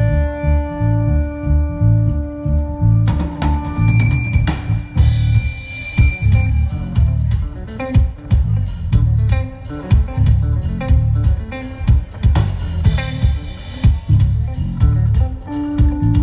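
Live rock band playing electric guitars over a drum kit. A held guitar note rings for the first few seconds, then the drums and cymbals come in hard about three seconds in.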